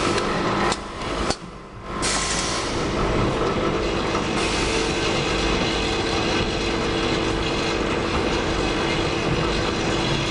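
Automatic assembly machine for transport safety parts running with a steady mechanical clatter and hum. It briefly drops off twice in the first two seconds, then runs evenly.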